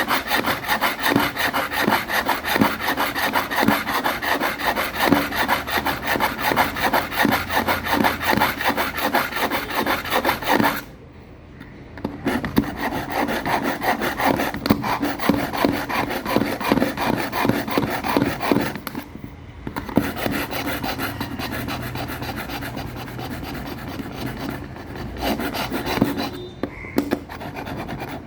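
A knife blade drawn quickly back and forth through the polishing slot of a manual kitchen knife sharpener, a fast, even scraping rasp. It stops briefly about eleven seconds in, then goes on more quietly, with another short break a little before twenty seconds.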